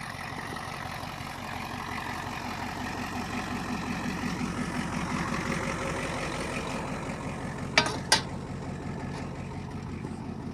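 Yard wrecker truck's engine running steadily as the truck rolls, swelling a little toward the middle. Two sharp knocks come close together about eight seconds in.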